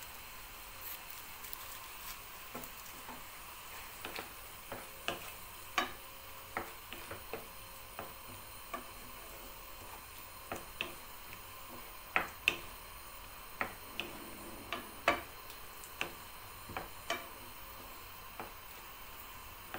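Wooden spoon stirring shrimp in tomato sauce in a nonstick frying pan, giving irregular light knocks and scrapes against the pan about once a second, over a steady sizzle from the pan.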